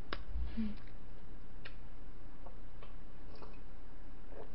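A few faint, scattered clicks over a steady low hum.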